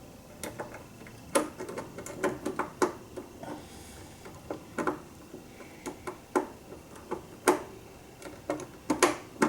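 Irregular light clicks and taps of a precision screwdriver and small screw working against the multi-effects unit's case, a few of them sharper, while a screw is being driven that will not thread in.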